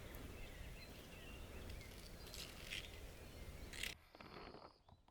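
Faint field ambience with small birds chirping now and then and a few short high ticks; the background drops away abruptly about four seconds in.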